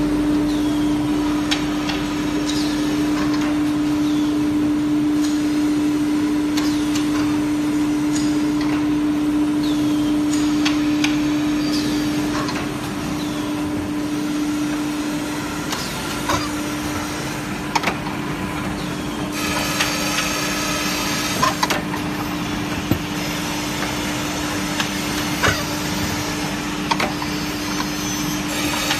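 Automatic melamine tableware edge-grinding machine running: a steady hum with scattered clicks and clacks of the mechanism. A brighter, hissing sound comes in twice, about two-thirds of the way through and again near the end.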